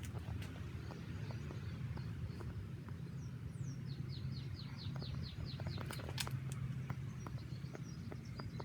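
Songbirds singing, with a quick trill of about ten short falling chirps in the middle, over a steady low background hum.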